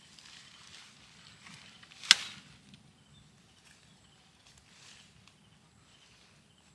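Soft rustling noises with one sharp knock about two seconds in, the loudest sound.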